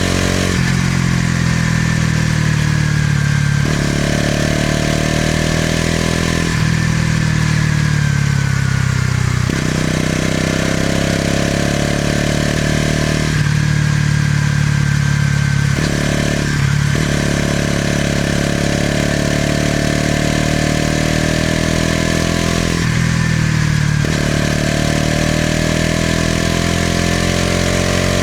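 Bajaj Pulsar NS200's single-cylinder engine and exhaust on the move, the throttle opening and closing several times: under throttle the note is fuller and climbs slowly, and it falls back when the throttle is eased off.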